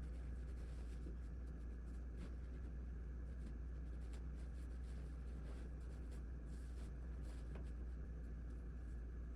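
Faint scattered taps and scratchy rustles, as from small objects being handled, over a steady low hum.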